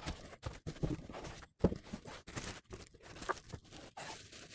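Plastic wrapping crinkling and cardboard packaging rustling in irregular crackly strokes as a wrapped telescope tube is lifted out of its box and handled.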